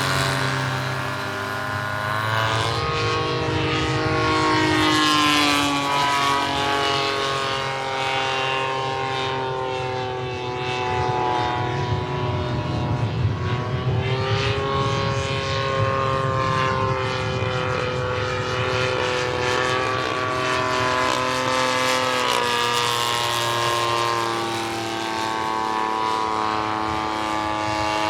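Propeller and engine of a large RC model de Havilland Tiger Moth biplane running in flight. The engine note holds steady in level, while its pitch falls and rises several times as the model passes and the throttle changes.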